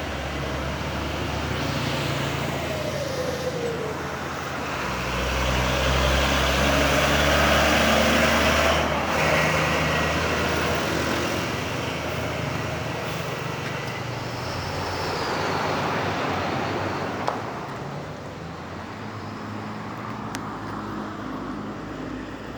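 Road traffic with a heavy vehicle passing close. Its engine and tyre noise swells about five seconds in and fades after about nine seconds.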